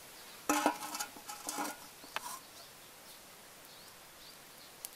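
Aluminium cooking pot clanking as it is set down on a clay charcoal stove: a handful of metallic knocks, each with a short ring, about half a second in and over the next two seconds.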